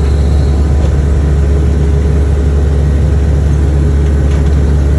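Excavator's diesel engine running steadily under load, a loud, even low drone with no change in pitch.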